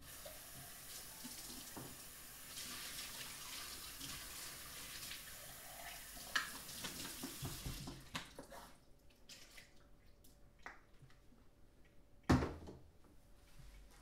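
Kitchen tap running into a stainless steel sink for about eight seconds as a French press is rinsed, then a few small clinks and one sharp knock about twelve seconds in.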